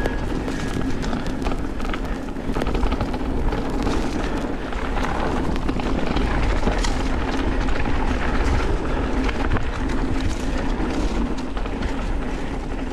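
Mountain bike rolling fast down a dirt flow trail: tyre noise and rattling and clicking of the bike over rough ground, with a heavy low rumble of wind on the microphone.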